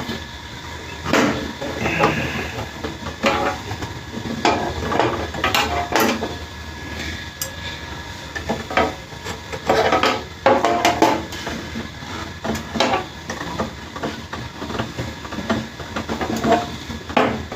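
Irregular metallic clinks and knocks of tools and machine parts being handled while the wood cutter's blade is being changed.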